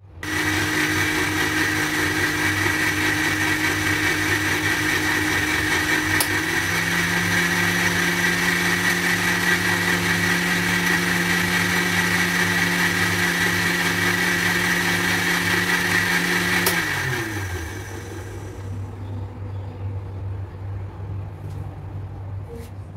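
Countertop blender motor running steadily as it blends a jug of white liquid, its pitch shifting slightly about six seconds in. It is switched off about 17 seconds in and the motor winds down with a falling pitch.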